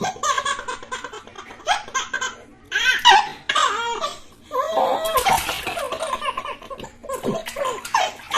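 Babies laughing, in repeated high-pitched bursts that break off briefly and start again.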